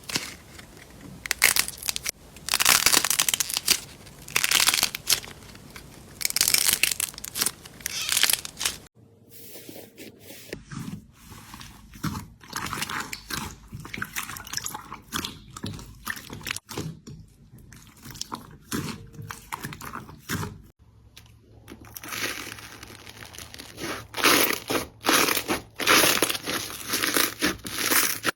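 Slime being squeezed, pressed and pulled by hand, making a run of crackling, crunchy squishes. The sound changes abruptly twice, about nine seconds in and again about twenty-one seconds in, with quieter popping clicks in the middle stretch.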